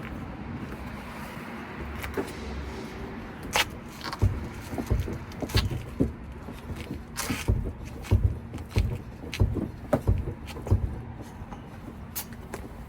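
Irregular knocks and thumps over a low rumble from a Mazda Demio, heard a dozen or so times through the middle of the stretch: the clunk from the suspension over bumps.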